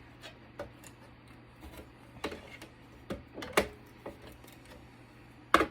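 Irregular clicks and light knocks of hand tools loosening screws on the circuit board of a Cisco Catalyst network switch, with the sharpest knock near the end.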